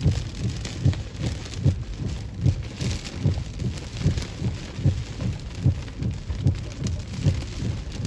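Heavy thunderstorm rain driven by strong wind, with a regular low thumping a little more often than once a second.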